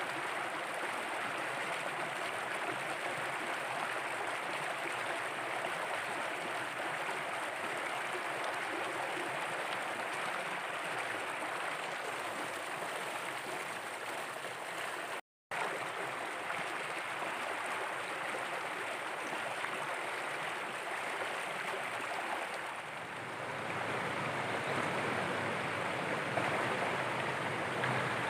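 Shallow stream running over rocks: a steady rush of water. It cuts out for a split second about halfway through.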